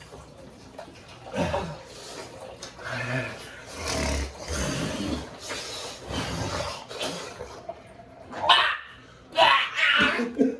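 A person huffing and groaning with a mouth burning from an extremely hot chili chip, with a few sharp vocal outbursts near the end.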